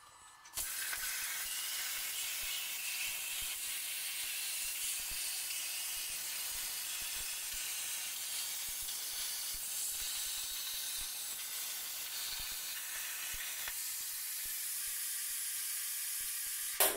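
CNC plasma cutter torch cutting 3 mm steel plate: a steady hiss that starts about half a second in. For the last few seconds the lower part of the sound drops away, leaving a thinner hiss that then stops suddenly.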